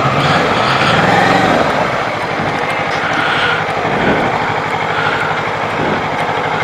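Kawasaki Ninja 650's parallel-twin engine idling steadily as the bike creeps in to park.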